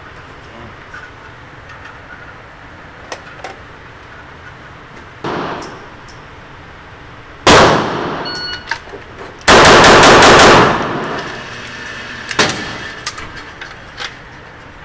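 A rapid string of about six pistol shots in just over a second from a Tanfoglio Stock II, a Bill Drill, echoing off the walls of an indoor range. Single louder shots come about two seconds before the string and about two seconds after it.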